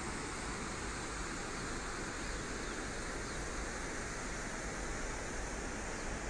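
Steady rushing of water released through a dam's open spillway gates: an even hiss that does not change.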